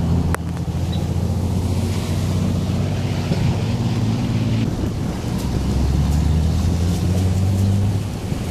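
Wind rumbling across the microphone outdoors, a steady low rumble with a sharp click just after the start.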